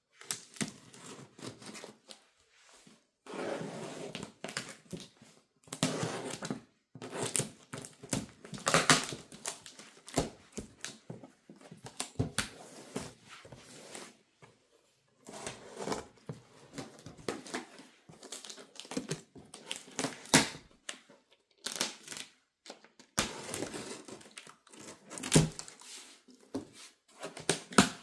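Packaging of a diecast model airliner being handled and opened: irregular crinkling and rustling of plastic and cardboard, with sharp clicks and short pauses between bursts.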